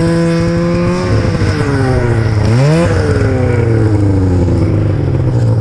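Snowmobile engine running at high revs, then easing off with falling pitch. About two and a half seconds in it revs up sharply once more, then slowly winds down again.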